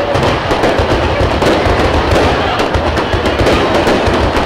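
Aerial fireworks display going off: a dense, continuous crackle of many small pops and bangs over a low rumble.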